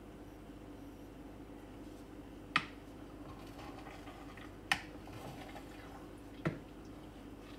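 A spoon knocking against a cooking pan three times, about two seconds apart, as food is stirred. A steady low hum runs underneath.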